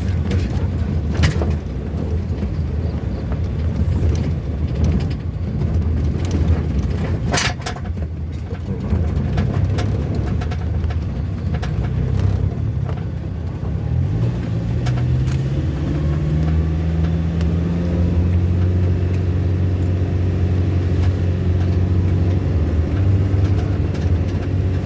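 Motor vehicle engine running while going down a steep road, with a few sharp knocks along the way. About two-thirds through, the engine note rises and then holds steady at the higher pitch.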